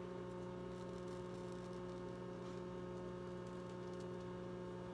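Steady, faint electrical hum: a fixed low buzz with several constant tones and no other sound.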